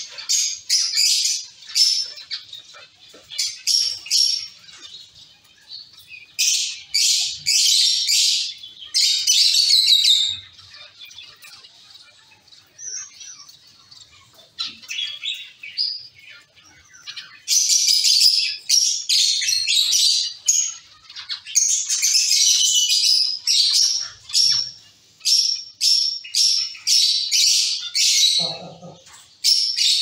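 A colony of zebra finches calling: many short, high chirps overlapping in quick runs, busiest in the second half.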